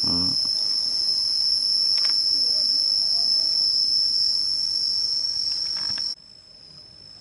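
Loud, steady, high-pitched drone of insects in the orchard trees. It drops suddenly to a faint level about six seconds in.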